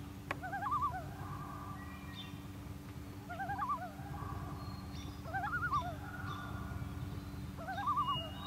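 Common loon giving its territorial call: a wavering phrase repeated four times, about two seconds apart, each running into a longer held note. A steady low hum lies underneath, and a single sharp click comes just after the start.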